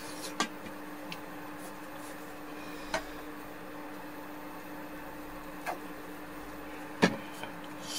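A steady low hum with a handful of short, light clicks and knocks spread through, the sharpest about seven seconds in.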